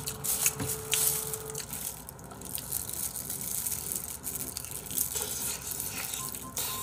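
Crispy fried chicken being bitten and chewed close to the microphone: a run of sharp crunching crackles from the battered coating.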